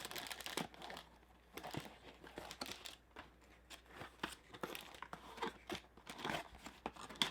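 Packaging being handled, crinkling and rustling in short, irregular bursts.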